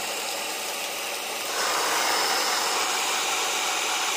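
Cordless drill whirring at speed as it spins a homemade centrifugal water pump, with the hiss and splash of the jet of water it throws. The sound gets louder about a second and a half in.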